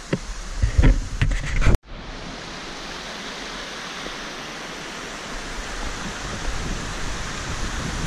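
A few loud low thumps and knocks on the microphone in the first two seconds. They stop abruptly at a cut, and then comes a steady rush of river water sheeting over a rock slab at the top of a waterfall.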